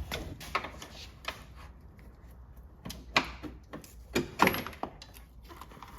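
A steel pry bar clinking and knocking against the sheet-metal cowl as the cowl is levered up in the engine bay: a scatter of sharp metallic knocks and scrapes, the loudest a little after three seconds and again around four and a half seconds.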